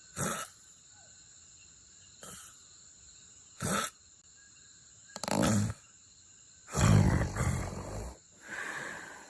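A sleeping person snoring in a run of separate snorts and rasping snores at uneven intervals, the first ones short, later ones longer, the longest and loudest about seven seconds in.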